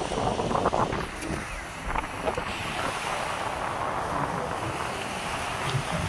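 Strong wind buffeting the microphone over the steady wash of small waves breaking on a sandy beach.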